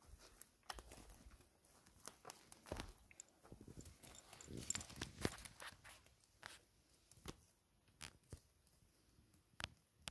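Faint crackling of dry twigs and spruce needles: scattered small snaps and rustles from footsteps through forest litter, thinning out in the second half as the person crouches and handles the litter around a mushroom with their hands.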